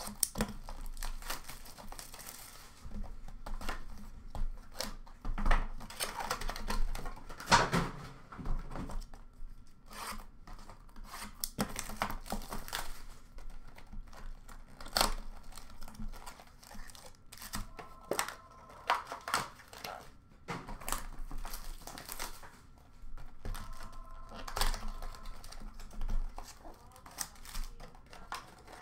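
A sealed box of trading cards being torn open by hand: its plastic wrapper ripped and crinkled, then the card packs rustling and dropping into a plastic bin, in irregular tears and crackles.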